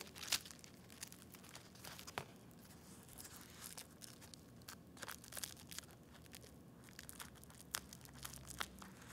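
Scissors snipping through bubble wrap, with the plastic film crinkling as it is handled; faint, irregular snips and crackles, a couple of them a little louder.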